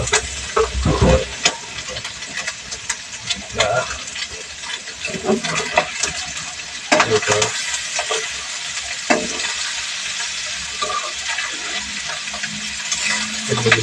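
Shredded stingray meat frying and sizzling in oil in a pan as it is stirred and turned with a spatula, the spatula scraping and knocking against the pan at irregular moments.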